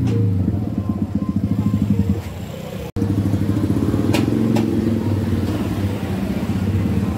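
Motorcycle engine running close by, a loud, steady low throb with rapid even pulsing. It cuts out for a split second about three seconds in, then carries on.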